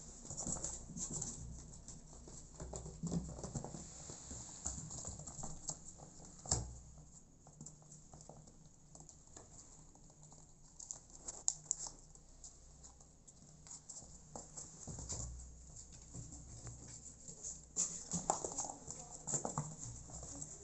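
Kittens scrambling about on cardboard: light pattering and scratching of small paws with scattered soft knocks, one sharper knock about six and a half seconds in.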